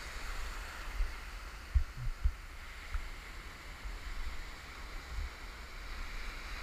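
Small ocean waves breaking and foaming surf washing around a wading angler, a steady hiss of moving water. Under it a low rumble of wind on the microphone, with two dull bumps about two seconds in.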